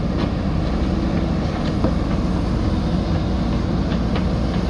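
JCB backhoe loader's diesel engine running steadily under work, with a few faint clicks and knocks over it.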